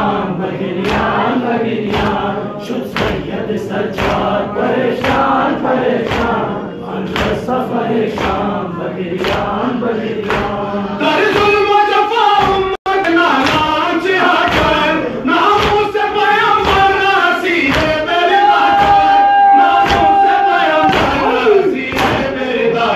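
A crowd of men doing matam, slapping their chests in unison about twice a second, while men's voices chant a noha (mourning lament) in chorus. About halfway through, the chant becomes a more drawn-out sung line with long held notes, and the chest beats keep time under it.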